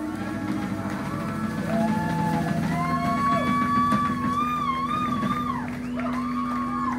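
Live rock band playing an instrumental passage: guitars and drums, with a lead line of sliding, wavering notes over a sustained low part.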